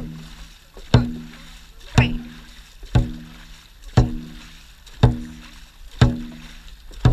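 Dragon boat crew paddling in steady rhythm: a sharp thud about once a second with each stroke, each followed by a short low ring, over a faint rush of water.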